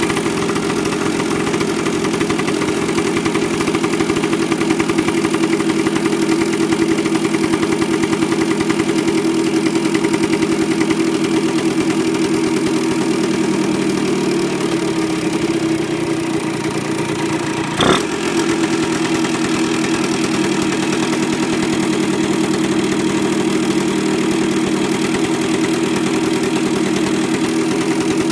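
Honda NSR50's two-stroke single, bored to 62.9cc, idling steadily with an abnormal noise that persists even after a crank rebuild and replacement of all crankcase bearings. A single sharp click about two-thirds of the way through.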